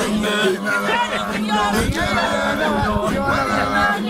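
Group of Maasai men singing their welcoming song a cappella, several male voices chanting together without instruments.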